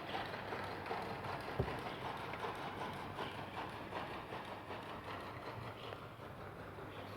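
A run of steps on hard ground, many small irregular knocks, with one sharp knock about a second and a half in.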